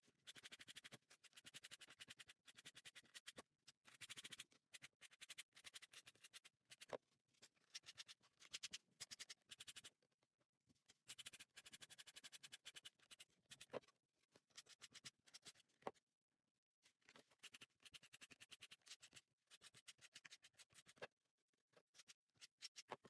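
Faint, repeated scratchy strokes of a metal fringe brush combing out unravelled macrame cord, in runs of quick strokes with short pauses between them.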